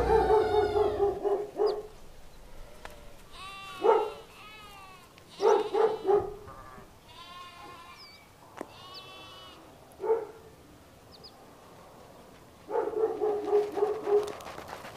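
Sheep bleating, about seven calls a second or more apart, the last one long and wavering.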